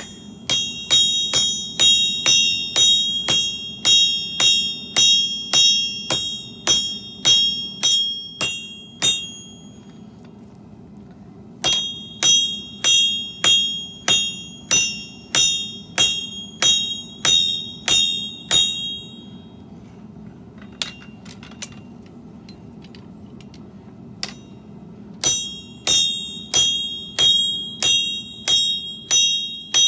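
Hand hammer striking steel on an anvil in three runs of steady blows, about two a second, each blow ringing out clearly. There are short pauses and a few light taps between the runs.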